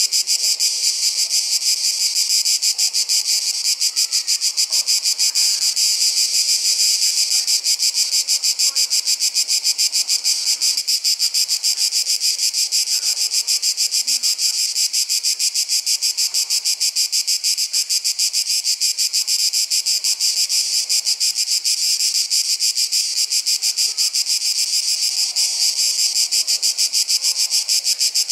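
Chorus of summer insects: a loud, continuous high-pitched buzz made of very rapid even pulses, holding steady throughout.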